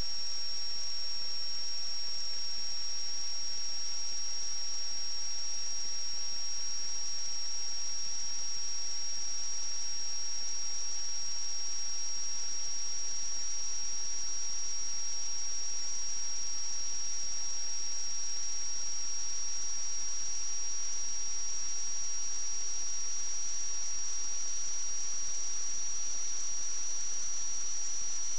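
Steady high-pitched electronic whine with a fainter second tone just below it, over a faint even hiss: electrical noise on a pipe inspection camera's recording.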